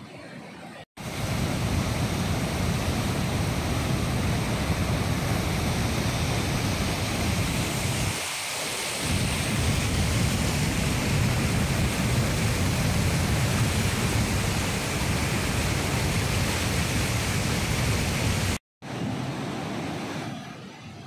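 Flood water rushing and churning through a river barrage's open spillway gates: a loud, steady roar of turbulent water, heavy in the lows. It starts abruptly about a second in and cuts off sharply near the end, leaving a quieter rush.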